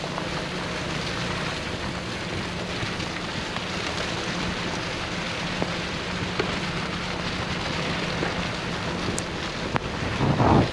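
Car driving in the rain: a steady hiss of rain and tyres on the wet road with a low engine hum underneath, swelling briefly near the end.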